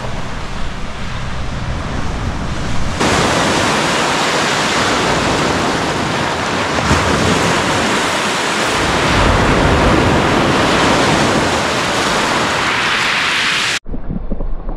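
Loud, steady rushing of wind and surf by the sea. It jumps louder about three seconds in and breaks off abruptly near the end, where a quieter, duller hiss takes over.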